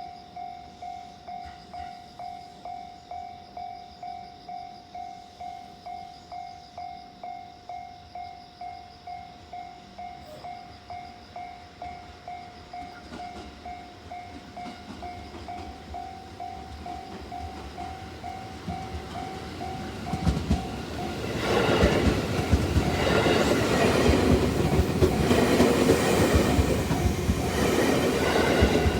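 Japanese level-crossing warning bell ringing steadily, about two dings a second. About twenty seconds in, a train arrives and passes much louder, its rumble and wheel clatter over the rail joints drowning the bell.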